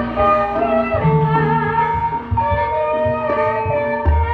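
Banyumasan gamelan ensemble playing ebeg music: struck bronze keys and gongs hold layered ringing notes, and low drum strokes come in near the end.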